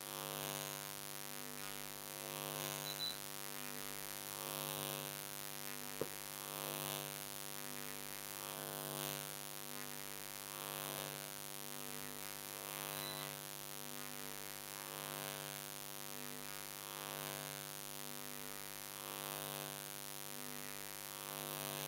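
Steady electrical hum made of several even tones, swelling and fading about every two seconds, with one faint click about six seconds in.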